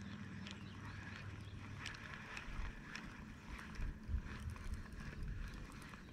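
Spinning reel of an Eagle Claw Pack-It telescopic rod being cranked to retrieve a lure, making a run of light clicks. There are a few low thumps about halfway through.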